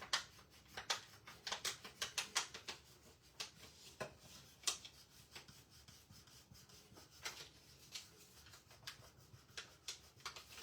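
Faint, irregular rubbing with scattered small taps and clicks, from hands handling craft materials on a work surface.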